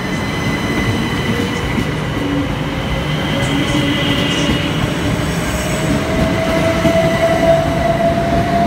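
Southern Class 377 Electrostar electric multiple unit moving past close by, its wheels rumbling on the rails. Over it there is a steady high whine, and a motor whine that rises in pitch over the second half as the train picks up speed.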